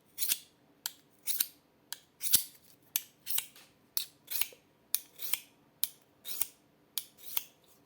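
A knife blade drawn through a Victorinox pocket sharpener in steady, repeated strokes, about one a second. Each stroke is a short scraping swish, with a light click between strokes.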